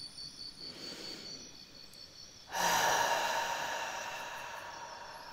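A woman's deep meditation breath: a faint inhale through the nose, then about two and a half seconds in a long exhale out through the mouth that slowly fades away.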